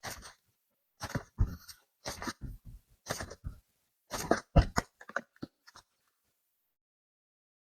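Soft modelling clay and its packaging being handled up close: a run of short squishing and crinkling handling noises in clusters, stopping about six seconds in.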